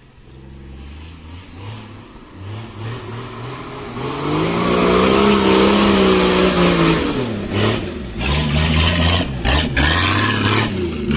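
Jeep CJ-style off-road 4x4's engine revving as it pulls through deep mud ruts. It swells to a loud peak about five seconds in, eases off, then revs up and down several more times near the end, with tyre and mud noise behind it.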